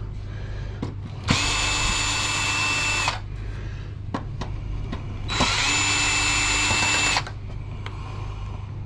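Power drill run twice for about two seconds each, a steady motor whine, backing screws out of a computer case.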